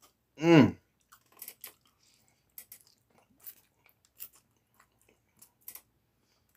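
A man eating with his mouth full: a short, loud voiced "mm" falling in pitch about half a second in, then scattered faint wet smacks and clicks of chewing and slurping pasta.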